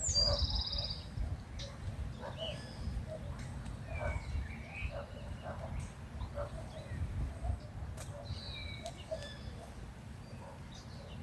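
Outdoor nature ambience: several birds give short calls, with a quick trill right at the start and short gliding calls later, over a steady low rumble.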